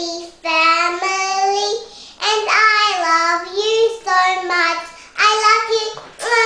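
A young girl singing unaccompanied, in short sung phrases of about a second each with brief breaths between them.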